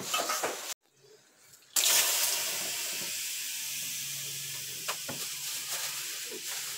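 Steam hissing inside a temazcal steam bath as water hits the heated stones; the hiss starts suddenly about two seconds in and slowly dies down.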